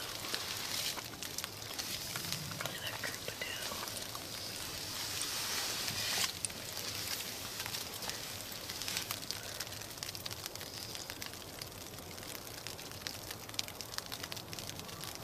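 Faint steady hiss with many light, scattered ticks, like fine snow or sleet pattering.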